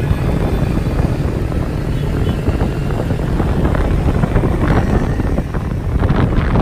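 Running rumble of a moving vehicle, with wind buffeting the microphone in irregular gusts.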